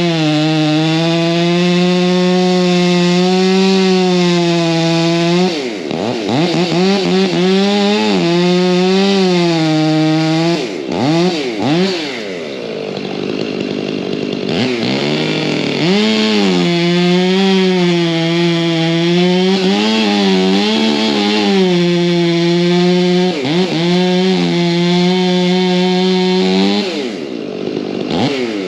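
Chainsaw running hard at high revs, cutting wood, its engine pitch dropping sharply and climbing back several times as the throttle is let off and squeezed again.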